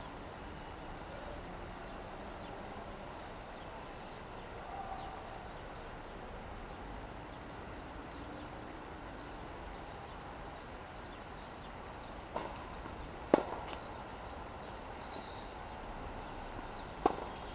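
Tennis ball struck by racket strings on an outdoor hard court: a faint knock, then a sharp hit about three quarters of the way through, and another sharp hit near the end. Before these there is only a steady outdoor background.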